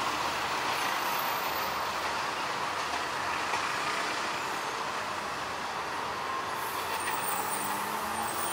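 Passenger train rolling away on the rails: a steady wash of wheel and running noise that slowly fades as the rear coach recedes.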